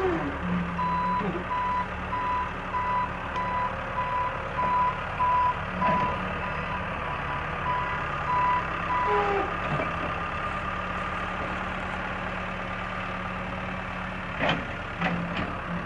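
Backhoe's reversing alarm beeping evenly over its running engine, the beeping stopping about nine seconds in. A few sharp knocks near the end.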